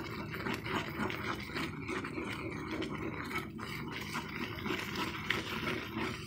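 Wooden spatula stirring semolina (rava) as it cooks in water in a non-stick pan, scraping and rubbing against the pan bottom without a break while the rava thickens into a paste.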